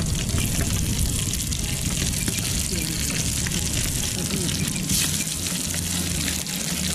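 Catfish pieces frying in hot oil in a pan over an open wood fire: a steady sizzle with fine crackles, over a low rumble.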